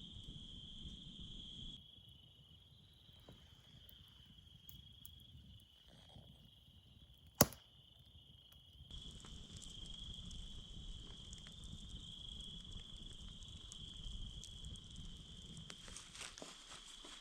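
Crickets trilling steadily over a faint low rumble, with one sharp, loud crack about seven seconds in.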